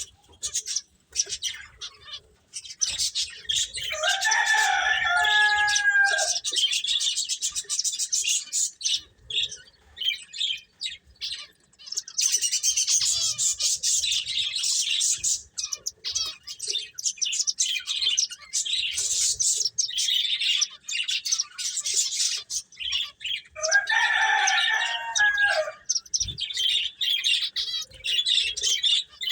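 Finches chirping and twittering in quick, high notes without a break. A longer, lower call stands out twice, about four seconds in and again near the end.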